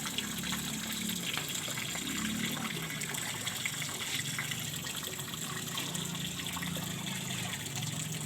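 Steady rushing and trickling of flowing water.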